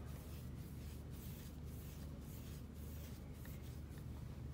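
Faint, soft rustling and rubbing of wool yarn as it is wound and handled around the fingers, over a steady low hum.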